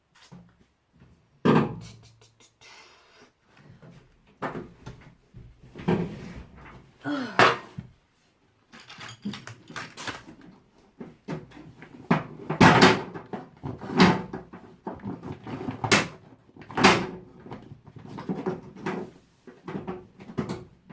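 Repeated knocks and clunks of hands working on a washing machine and its hose fittings, irregular and loudest in a run of sharp bangs about halfway through.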